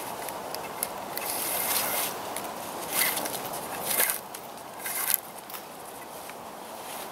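Paracord and hands rustling and scraping against wooden poles while a clove hitch is tied, in four or five short scratchy bursts over a steady outdoor hiss.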